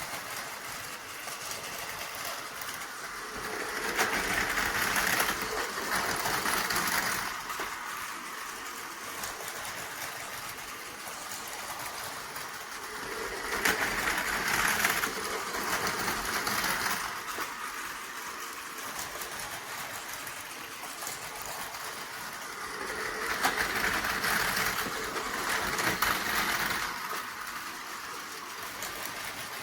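Battery-powered Tomy Plarail toy trains running on plastic track: a steady small-motor whir and rattle. It swells louder three times, about every ten seconds.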